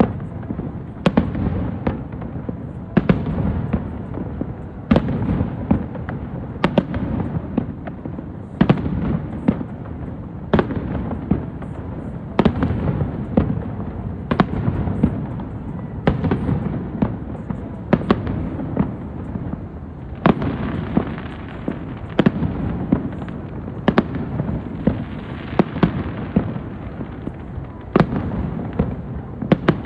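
Aerial fireworks show: shells bursting in sharp bangs every second or two, over a continuous low rumble and echo between them.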